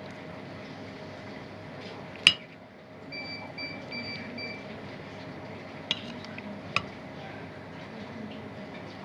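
Kitchen clatter: a sharp clink of dishes about two seconds in, then a short run of high electronic beeps, then two more clinks, over a steady low hum.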